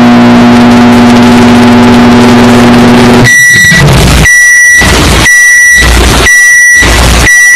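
Very loud electronic meme sound. A steady buzzing drone runs for about three seconds, then gives way to a pattern of a high beep alternating with a deep bass hit, about one beep a second, five beeps in all.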